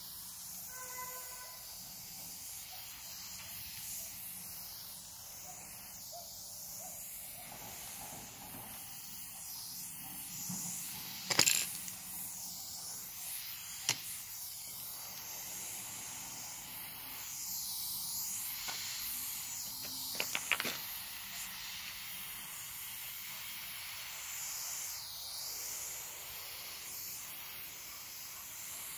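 Aerosol spray paint can hissing in long strokes of paint onto a wall, the hiss swelling and fading as the can moves. A few sharp clicks break in, the loudest about eleven seconds in and a short cluster near twenty seconds.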